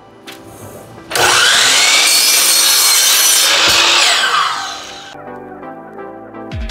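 Sliding compound miter saw starting up and crosscutting a glued-up pallet-wood (pine) panel. The motor whine rises as it spins up about a second in, the blade runs loudly through the cut, then it winds down about four seconds in.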